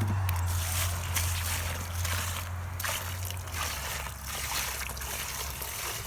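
Water sloshing and splashing out of a 5-gallon bucket of air-conditioner condensate, in an uneven rushing spatter, with a steady low hum underneath.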